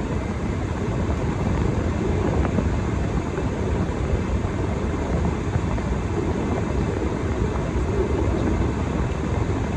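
Steady low rumbling noise that stays even throughout, with no distinct events.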